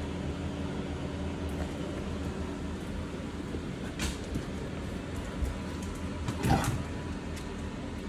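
Steady low hum, with a short, louder sound from the dogs, an adult dog and a black puppy, about six and a half seconds in.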